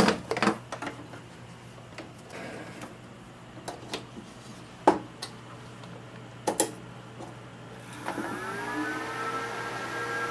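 Clicks and knocks of a cable being handled and plugged in. Then, about eight seconds in, a 100 megabit Nortel network switch powers up: a whine rises in pitch and levels off into a steady tone, with a rising hiss of air.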